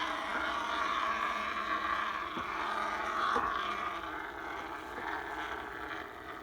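Steam wand of a Mr. Coffee Cafe espresso machine hissing steadily as it steams and froths milk, growing a little quieter near the end.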